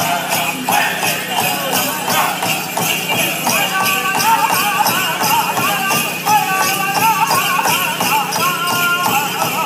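Powwow drum group drumming a steady beat and singing a men's chicken dance contest song, with the dancers' bells jingling along. The singing grows stronger about three and a half seconds in.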